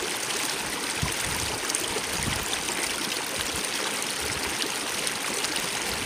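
Small mountain brook running over stones: a steady rush of water with small scattered splashes.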